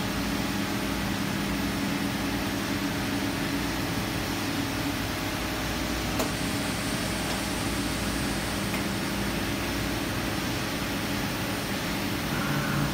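Makino EDNC65-A16 sinker EDM machine running with a steady hum and whir from its pumps and power unit, with one sharp click about six seconds in. Near the end a second whine joins in as the ram lowers the electrode.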